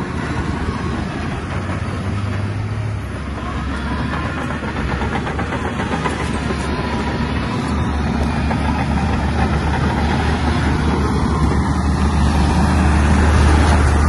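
Diesel engine of a heavy earthmoving machine running, getting louder toward the end, with a deep steady drone that strengthens from about halfway in.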